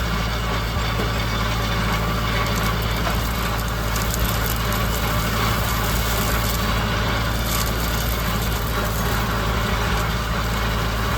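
Tractor engine running steadily while pulling a no-till drill, a deep, even drone with no changes in speed.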